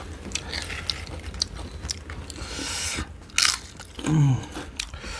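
A man's mouth noises: scattered small lip smacks and clicks, a breathy rush about two and a half seconds in, a sharper click at about three and a half seconds, and a short voiced sound falling in pitch about four seconds in.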